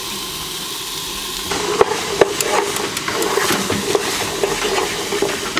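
Diced vegetables sizzling as they fry in oil in a pan, stirred with a utensil that knocks and scrapes against the pan. The sizzle gets louder about a second and a half in, with a couple of sharp knocks soon after.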